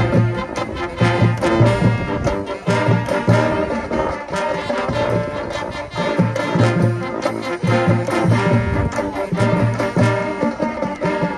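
High school marching band playing: brass section holding chords over a steady beat of low drums.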